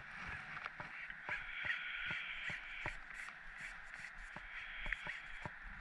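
Crows cawing in harsh calls, a long stretch a little over a second in and a shorter one near the end, with scattered light clicks and taps throughout.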